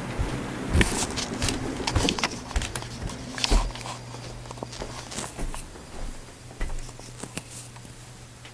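Irregular footsteps, knocks and clicks of handling a camera, over a steady low hum.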